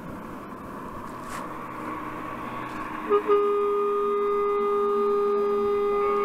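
Road noise of an approaching vehicle building up, then about three seconds in a vehicle horn sounds: two quick toots, then one long steady blast.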